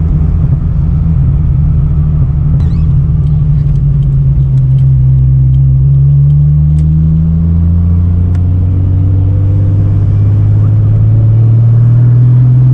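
Holden VL Turbo Commodore's Nissan RB30ET turbocharged straight-six running under light load while driving, its low engine note slowly climbing as the car gathers speed.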